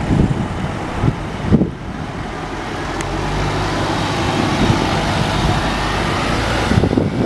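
Hybrid double-decker bus driving past close by and turning away, its engine running with a steady hum that slowly grows louder. For about the first second and a half, wind buffets the microphone.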